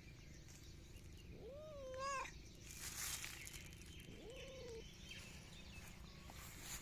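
Domestic cat meowing twice, each call rising and then holding, about a second and a half in and again about four seconds in, with a brief rustle between them.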